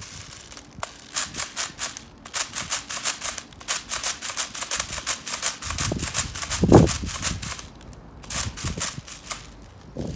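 Airsoft speed loader being pumped to push BBs into an M4 magazine: a run of quick clicks, about five or six a second, with short pauses and one dull knock about seven seconds in.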